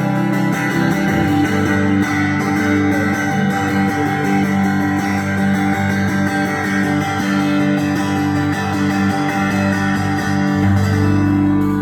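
Live band music led by guitars, playing an instrumental passage with long held chords and no singing, near the close of the song.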